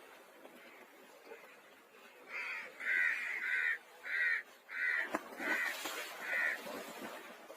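A bird calling: seven short, loud calls in quick succession over about four seconds, over low background noise.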